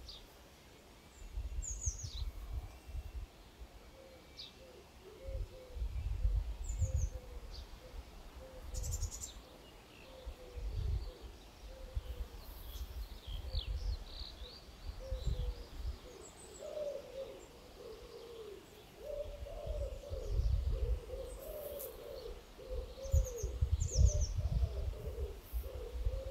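Wind buffeting the microphone in irregular low gusts, with a dove cooing over and over in the background, thicker in the second half, and small birds giving short high chirps.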